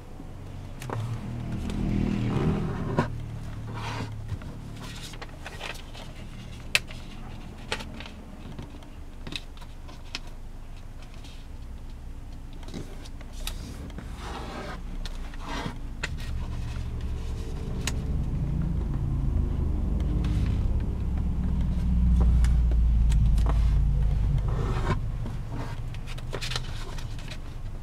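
Sheet of origami paper being folded and creased by hand: crinkles, rubbing and sharp clicks as folds are pressed flat. A low rumble builds in the second half, is loudest a few seconds before the end, then fades.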